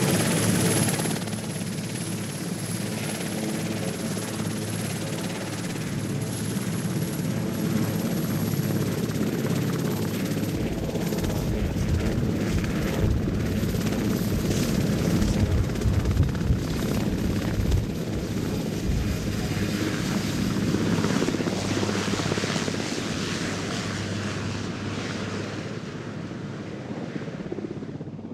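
Sikorsky VH-3 Sea King helicopter (Marine One) running on the ground and lifting off, its twin turboshaft engines giving a steady high whine over the rotor's chop. The low rumble grows heavier about ten seconds in, and the whole sound fades over the last few seconds as the helicopter climbs away.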